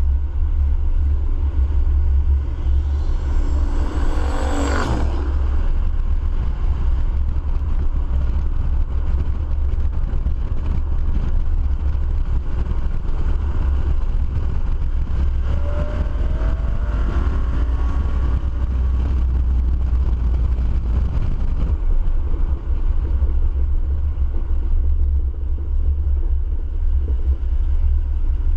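A motor vehicle running with a steady, loud low rumble, and a whine that rises steeply in pitch about four seconds in.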